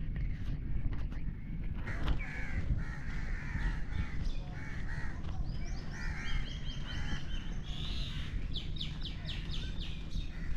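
Crows cawing repeatedly for several seconds, joined in the second half by quick series of higher chirps from smaller birds, over a steady low background rumble.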